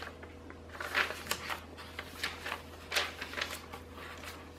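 Thick paper pages of a handmade junk journal rustling as hands turn and smooth them, in a string of short rustles with the two loudest about a second in and near three seconds.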